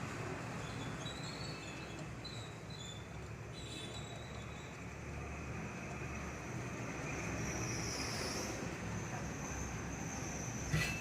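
Steady whooshing background noise, with faint high chirps in the first few seconds.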